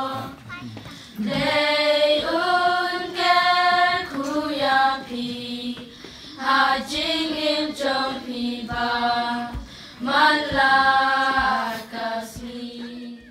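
A group of children singing together without accompaniment, in phrases separated by short pauses.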